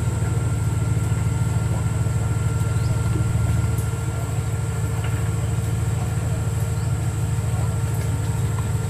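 Off-road 4x4 vehicle's engine running steadily, with an even low rumble and no revving.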